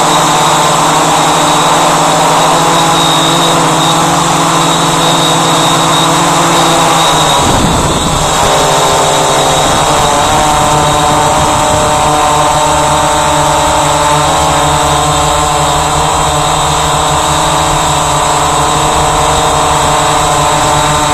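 Walkera Voyager 3 quadcopter's electric motors and propellers whining steadily, heard from the aircraft itself. A little over a third of the way in, the pitch shifts with the throttle and there is a brief low rumble, then the motors carry on at a new, higher pitch.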